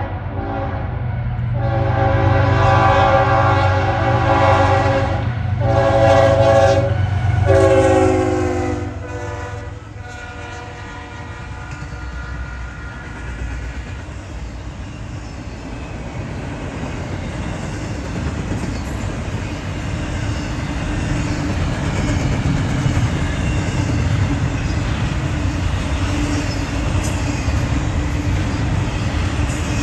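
A passing train's locomotive sounds a multi-note air horn in several blasts, the chord dropping in pitch about eight seconds in as the locomotive goes by. The train's cars then roll past with a steady rumble and the clatter of wheels on rail joints.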